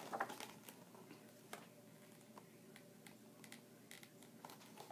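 Near silence: room tone with a few faint, scattered clicks from a picture book being handled.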